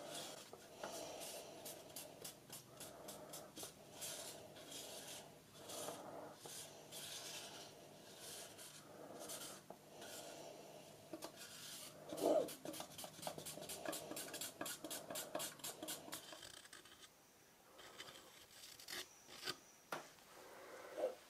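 Wooden stir stick scraping through thick two-part silicone rubber in rapid strokes. The strokes thin out for the last few seconds, leaving a few separate scrapes.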